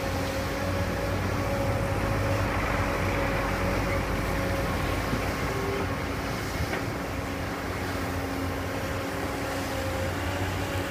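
Komatsu PC240LC-10 super long front excavator's diesel engine running steadily under load with a steady whine over a low rumble, as the hydraulics work the long arm and bucket.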